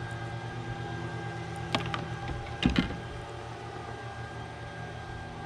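A steady mechanical hum made of several held tones, with two sharp knocks, one a little under two seconds in and a louder one with a dull thud nearly three seconds in.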